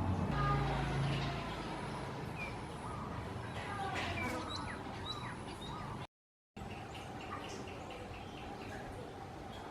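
Small birds chirping, scattered short calls and quick rising and falling whistles, over steady outdoor background noise. A low hum fades out in the first second or so, and the sound cuts out completely for about half a second a little after six seconds in.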